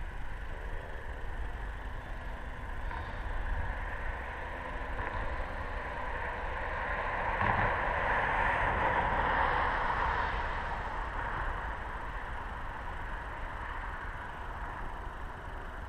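Radio-controlled Hype Fox motor glider passing overhead: a rushing sound that builds over a few seconds, peaks about halfway through and fades away. Wind rumbles on the microphone underneath.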